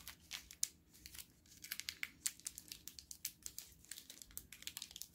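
Plastic wrapper of a chocolate bar crinkling in many quick, irregular crackles as it is unwrapped.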